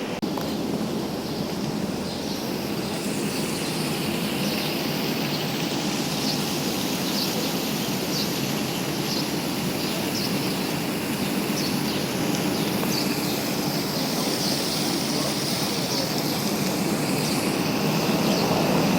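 Steady background din of an airport departure area, with faint short clinks here and there.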